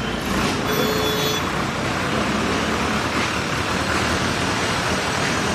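Mobile crane's engine running steadily while it holds a suspended milling machine. A short high tone sounds about a second in.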